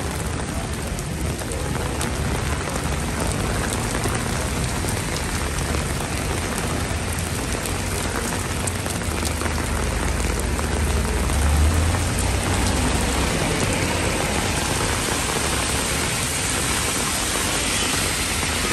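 Heavy rain falling steadily on wet pavement and road, with a low rumble of passing buses and cars underneath that swells about two-thirds of the way through.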